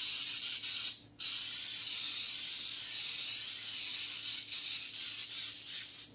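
Aerosol cooking spray hissing from the can as it greases a metal cake pan: a short spray, a brief stop about a second in, then one long steady spray that trails off near the end.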